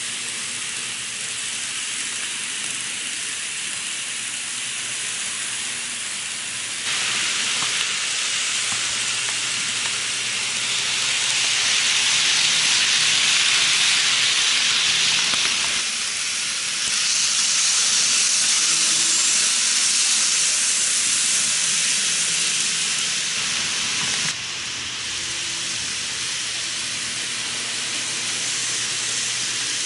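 N-gauge model trains, a Kiha 81/82 diesel set and a 201 series electric set, running side by side: a steady hissing rush of wheels on rails over a faint motor hum. The rush gets louder about seven seconds in and drops back suddenly about three-quarters of the way through.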